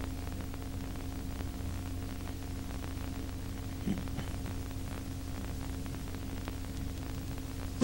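Steady electrical hum with hiss from an old home-movie soundtrack, with a faint brief blip about four seconds in.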